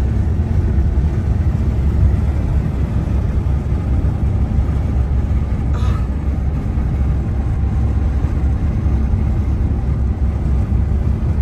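Steady low rumble of road and tyre noise inside a car's cabin at highway speed.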